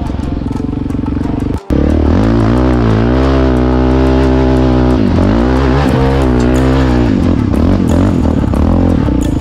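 Yamaha Raptor 700R quad's single-cylinder engine revving under load, its pitch dipping and rising again several times, with a brief break about one and a half seconds in; background music plays along.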